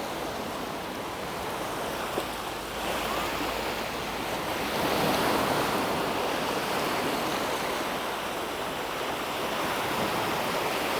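Small waves washing up on a sandy beach: a steady rush of surf that swells as a wave comes in about three seconds in and again, louder, around five seconds.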